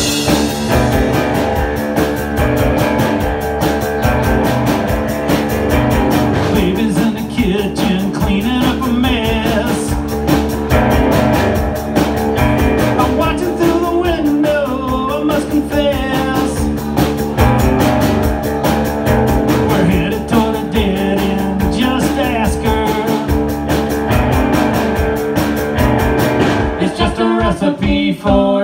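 A live two-piece rock band playing: electric guitar and a drum kit, with a man singing into the microphone.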